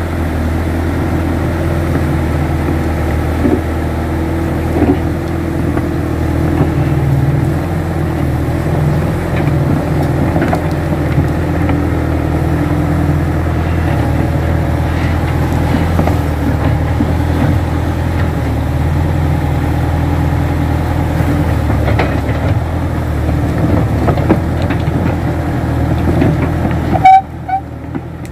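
Kato crawler excavator's diesel engine running steadily, with a few light knocks. The sound drops away suddenly about a second before the end.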